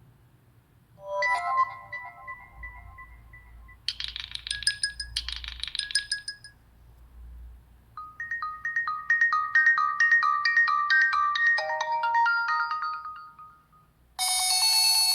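Stock Nokia 3 (TA-1032) ringtones and alert tones played one after another with short pauses: a brief tone phrase about a second in, a bright chiming pattern a few seconds in, a longer melodic run in the middle, and the next tone starting near the end.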